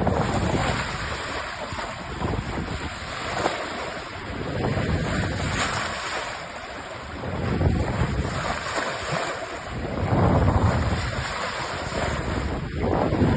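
Wind buffeting the microphone over the rush of sea waves, swelling and easing in irregular gusts.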